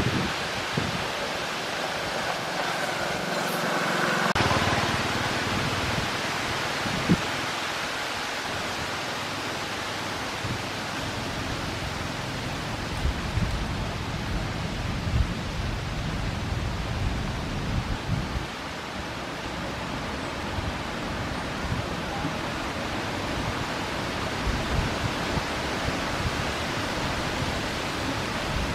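Steady hiss of wind on the microphone, with irregular low buffeting thumps.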